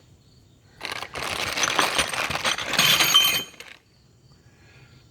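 Metal hand tools and their packaging being handled for about three seconds: a rustling clatter with small metallic clinks that stops abruptly.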